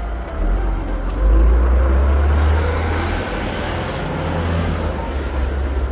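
A road vehicle's engine running with a deep, loud rumble, swelling about a second in and easing off near the end.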